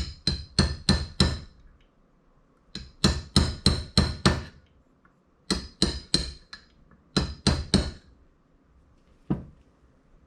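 A small hammer tapping a part down into a Triumph TR6 carburetor body. It comes in quick runs of light metallic taps, three to six at a time, with short pauses between, and one last single tap near the end.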